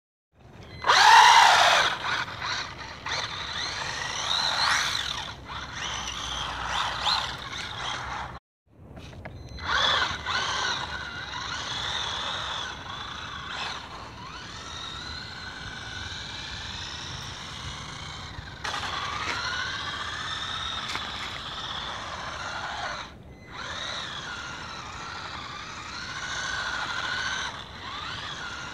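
WLtoys A959B RC buggy's electric motor whining, its pitch rising and falling over and over with the throttle as the four-wheel-drive wheels spin on ice. A loud burst comes near the start, and the sound drops out briefly about eight seconds in.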